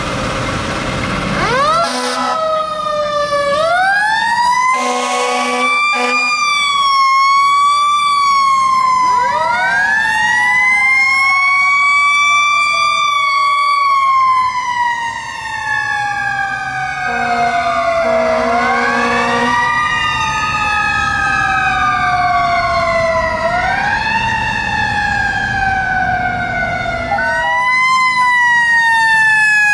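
Fire truck siren, its pitch repeatedly swept up quickly and let fall slowly, with several blasts of the truck's air horn mixed in.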